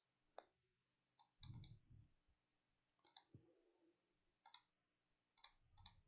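Near silence broken by faint computer mouse clicks, about a dozen single clicks scattered through, with a quick group of three about one and a half seconds in.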